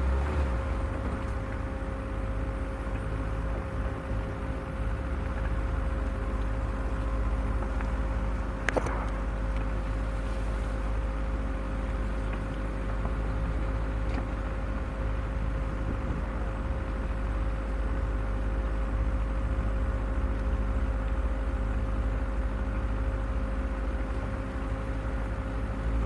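Off-road vehicle's engine running steadily with a low rumble and a constant hum, as it crawls along a rough, overgrown forest track. A single sharp knock sounds about nine seconds in.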